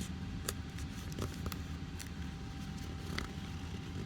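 Origami paper being folded and creased by hand: a few short, soft crinkles and taps over a steady low hum and a faint steady tone.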